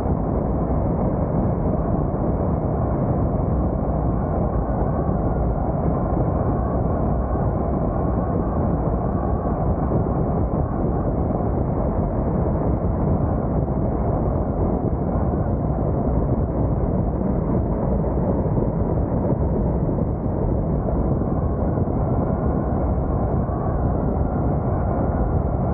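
Steady, muffled rush of wind and road noise on a camera mounted outside on the roof of a moving car, with no let-up.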